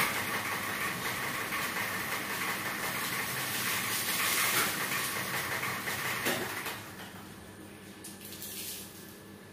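High-pressure car-wash washer spraying water, a loud steady hiss that stops about seven seconds in.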